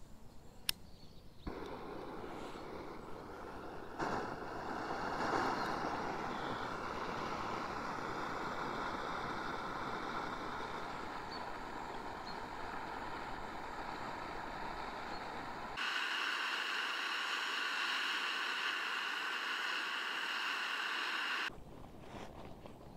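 Small gas canister camping stove burning under a metal mug: a sharp click, then the burner's steady hiss starts about a second later. Around sixteen seconds in the hiss turns brighter and higher, and near the end it cuts off suddenly.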